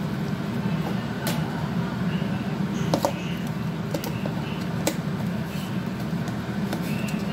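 A steady low mechanical hum, like a kitchen fan or motor running, with a few sharp clicks scattered through. Under it is the soft squishing of tofu and egg being mashed by a plastic-gloved hand in a bowl.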